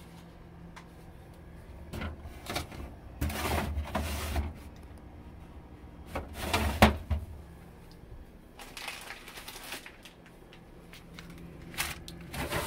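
Plastic refrigerator drawers being slid and items moved around in them: a series of knocks and scrapes, the loudest about halfway through, with a faint steady low hum underneath.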